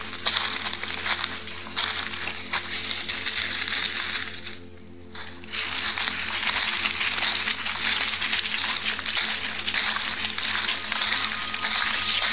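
Footsteps crunching and rustling through dry leaf litter and dry grass, a steady crackle of stepping that stops for about a second just before halfway and then goes on.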